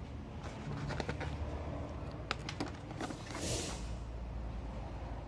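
A packaged dog toy, a cardboard-backed ball pack, being handled and hung back on a metal display hook: a few light clicks and a short rustle, over a steady low hum.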